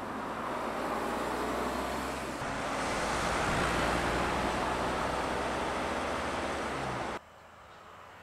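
A smart fortwo driving at road speed: a steady engine hum under tyre and wind noise. The sound changes abruptly about two and a half seconds in, and drops sharply to a much quieter road hush about a second before the end.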